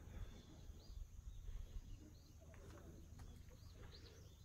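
Faint outdoor ambience: a few short, high bird chirps, with a low rumble in the first couple of seconds.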